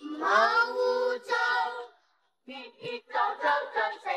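Children singing a Cantonese children's song about keeping clean, a sung phrase that ends about two seconds in. After a short silence a second children's song starts, sung in short, clipped syllables.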